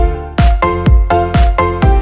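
Background music with a steady beat, about two beats a second, over held melodic notes.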